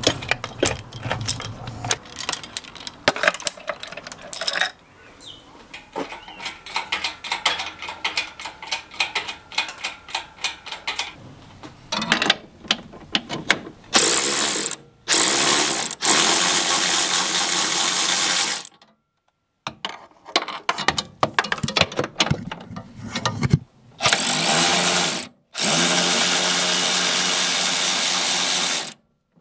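Rapid metallic clicking for the first few seconds, then a cordless power ratchet driving a long socket extension on the engine-mount bolts, running in several bursts of a few seconds each.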